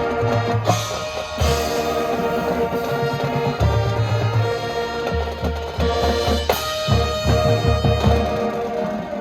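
Marching band playing: held brass chords over repeated low drum hits.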